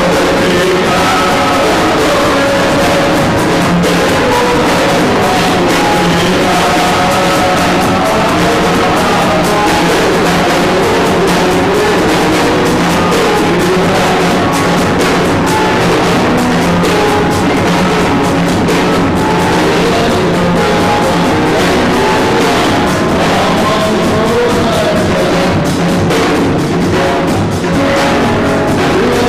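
Music with drums and other instruments, and singing, at a steady loud level.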